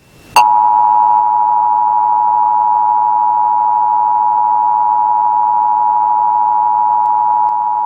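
Emergency Alert System attention signal: the steady two-tone alarm, starting about half a second in and held unchanged. It announces the emergency alert message that follows.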